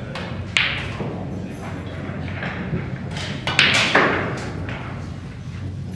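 Snooker shot: the cue tip clicks sharply against the cue ball about half a second in. About three and a half seconds in comes a louder cluster of sharp knocks and a thud as balls strike.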